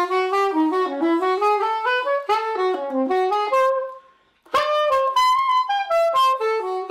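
Solo saxophone playing a quick run of short notes that wind up and down, breaking off briefly about four seconds in and then going on.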